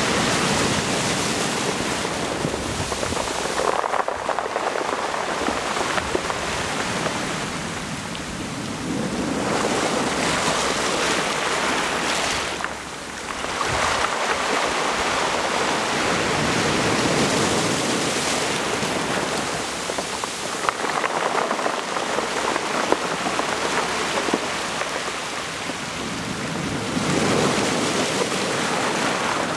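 Small waves breaking on a beach of smooth round pebbles and washing up over the stones and back, the surf swelling and falling away every few seconds.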